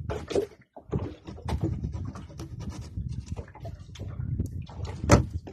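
A knife cutting bait on a wooden board in a small boat gives irregular knocks and clicks, the loudest about five seconds in, over a steady low rumble.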